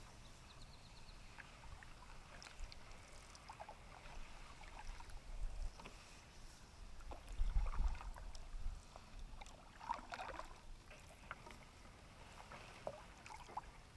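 Canoe being paddled on calm water: the paddle dipping, swishing and dripping in uneven strokes, with a low thump a little past halfway.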